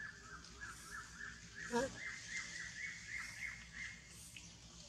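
A bird calling in a quick series of short, high chirping notes, about three to four a second, with one louder, lower call about two seconds in.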